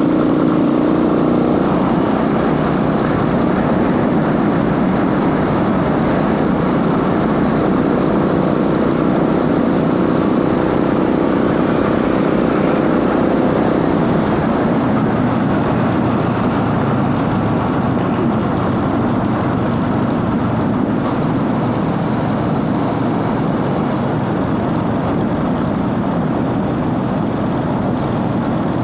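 Motorcycle running steadily under way, its intake noise and drive-chain whir heard together. A pitched drone over the rumble in the first half fades to an even rumble about halfway.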